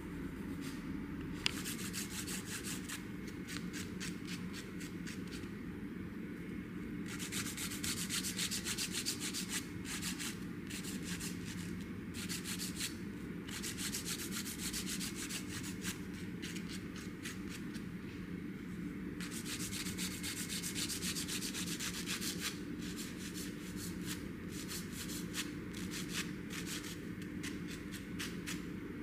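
Emery board filing fingernails: quick back-and-forth scratching strokes in runs of a few seconds, with short pauses between runs.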